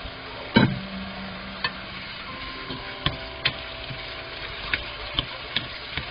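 A wooden spatula stir-frying sweet potato stems and dried anchovies in a nonstick pan, knocking and scraping against the pan over a light sizzle. There is a loud knock about half a second in, then irregular sharp clicks.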